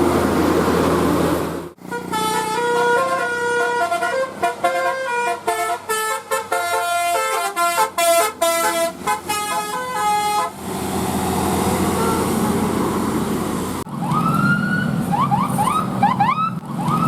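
Bus telolet horn, a multi-tone musical air horn, playing a fast melody of short stepped notes for about eight seconds between stretches of steady engine and street noise. After a cut near the end, a run of quick rising siren-like whoops repeats.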